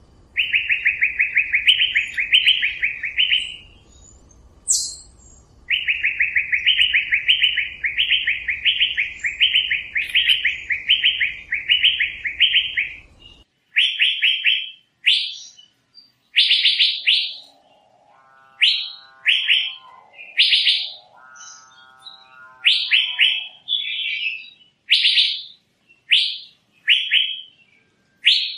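Asian fairy-bluebird calling: quick runs of short repeated notes lasting several seconds, then single rising whistled notes spaced about a second apart. Twice in the middle, a lower call with several pitches sounds beneath them.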